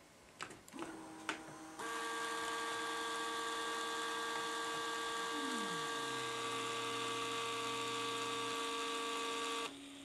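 Battery-powered tubular roller-shade motors switched on together, with a few clicks in the first second, then running at once with a steady whine and hum. About five seconds in, one tone slides down in pitch. Most of them cut off suddenly near the end, leaving one still humming.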